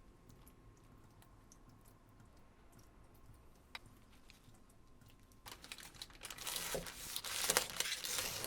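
Faint scattered clicks, then, about five and a half seconds in, a louder, dense crinkling and rustling as something crinkly is handled during sandwich assembly.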